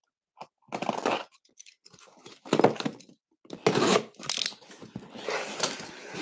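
A cardboard box being torn open: several short rips and scrapes, which run together into a continuous rustle near the end.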